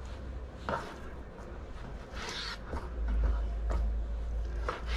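Knife slicing through raw lamb shoulder and catching on the cutting board, making short scraping and ripping strokes with a few light clicks, over a low steady hum.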